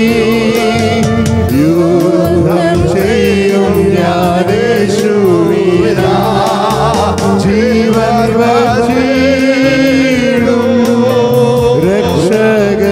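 A Malayalam Christian devotional song: sung vocals with a wavering, vibrato-laden melody over sustained accompaniment and a steady, evenly ticking beat.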